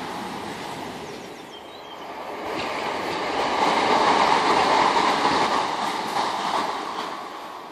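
Electric multiple-unit passenger train in Southern's green-and-white livery passing at speed, with steady wheel-and-rail noise. It eases off briefly about a second and a half in, then grows louder again and fades near the end.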